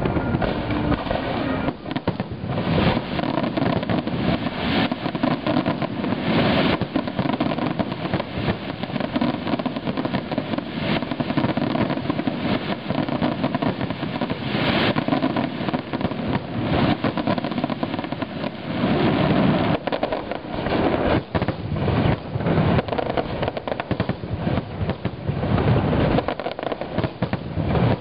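Aerial fireworks bursting in a dense, continuous barrage: many overlapping bangs and crackles following one another rapidly.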